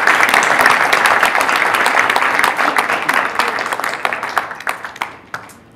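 Audience applauding. The clapping is loudest at first and fades gradually, thinning to a few scattered claps near the end.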